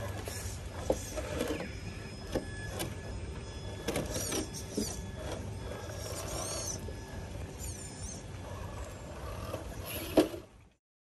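An MST RC scale crawler's small electric motor whines faintly as it crawls over wet rock. Its tyres and chassis knock and scrape on the stone, with one loud knock about ten seconds in. Birds call several times, and the sound fades out near the end.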